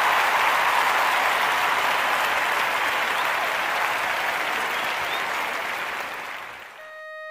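Theatre audience applauding, a dense steady clapping that fades out over the last couple of seconds. Just before the end a steady held tone comes in.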